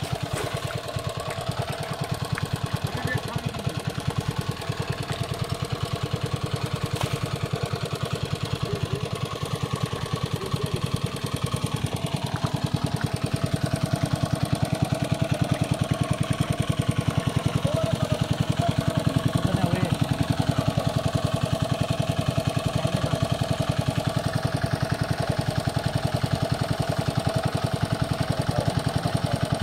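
A small engine running steadily with a fast, even chugging beat.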